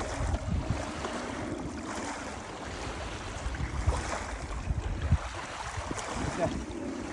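Wind buffeting the microphone: uneven low rumble over a steady noisy wash.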